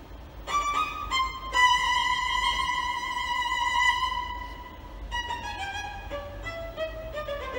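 Violin playing a slow melody: a few short notes, then a high note held for about three seconds, then a run of shorter notes stepping downward.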